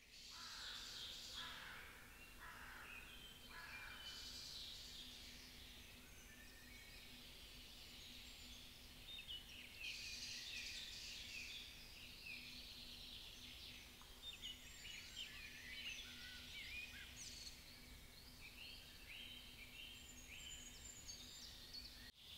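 Faint birdsong in woodland at dawn: several birds chirping and trilling in short phrases.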